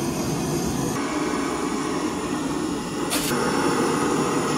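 A steady rushing noise, with a short hiss about three seconds in.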